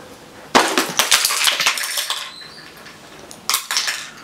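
A handful of small hard objects dropped and clattering down for about a second and a half, followed by a shorter burst of noise near the end.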